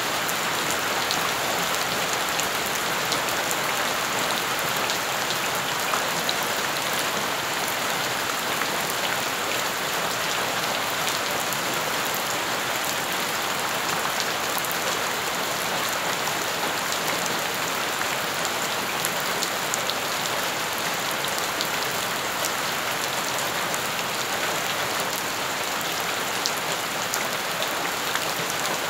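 Steady rain falling onto wet ground and puddles: an even hiss of splashing drops with scattered sharper drop ticks.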